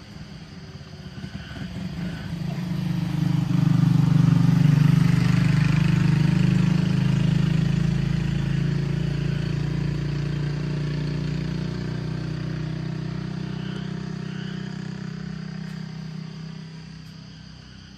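A road vehicle's engine passing close by, growing loud about four seconds in and then slowly fading away.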